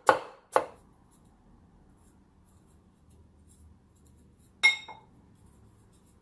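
Two knife chops through a carrot onto a wooden cutting board, then faint scraping as a carrot chunk is pared round by hand with the knife. A little past halfway, one sharp ringing clink.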